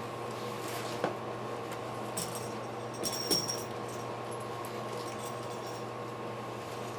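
A few light metallic clinks and rattles, as of small assembly hardware such as bolts and a screwdriver being handled, over a steady electrical hum.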